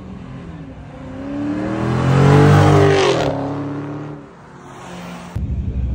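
A car accelerating hard on a flyby: its engine note climbs in pitch and grows loud, peaks as it passes, then drops in pitch and fades. A deep low rumble starts suddenly near the end.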